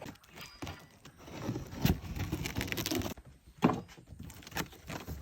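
Cardboard shipping box being handled: irregular knocks and clatter with a stretch of rustling in the middle and a sharp knock just after halfway.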